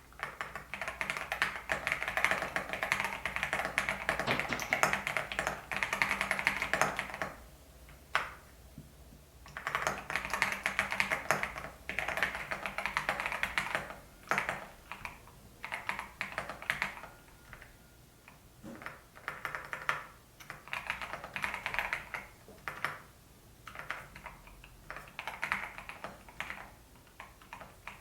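Typing on an EPOMAKER TH80 PRO V2 mechanical keyboard with Mulan switches: fast runs of key clicks and clacks, broken by short pauses, the longest about eight seconds in.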